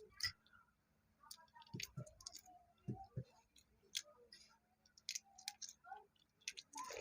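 Faint, scattered small clicks and taps of balut eggs being eaten, eggshell being cracked and picked apart, with a few soft low knocks.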